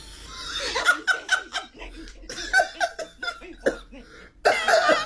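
A person's voice in short bursts of laughing and coughing.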